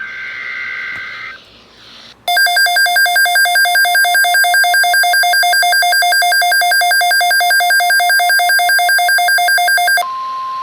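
NOAA Weather Radio alert tones. A warbling two-tone SAME digital header burst ends just over a second in. About two seconds in, a loud electronic alarm starts, pulsing about four times a second, and near the end it gives way to the steady 1050 Hz weather-radio warning tone that precedes a broadcast alert.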